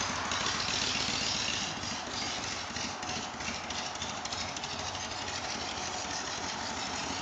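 Distant motorcycle engine running steadily at low speed as the bike rides slowly across a lawn.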